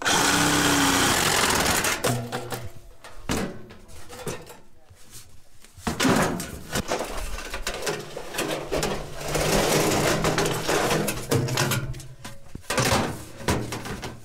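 A reciprocating saw cuts through galvanized spiral sheet-metal duct in a loud burst of about two seconds. After it, lengths of the metal duct knock, slide and clatter as they are handled and loaded onto a pickup's bed.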